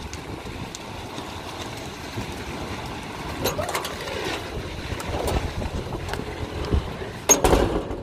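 Sandstorm wind blowing in a steady rush and buffeting the microphone, with stronger gusts about three and a half seconds in and again near the end, the last the loudest.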